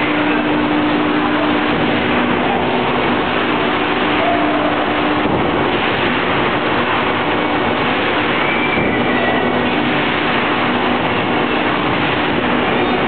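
Angelo Cremona rotary veneer peeling lathe running with a log mounted between its spindles: a loud, steady mechanical noise with a constant hum whose pitch shifts a little under halfway through.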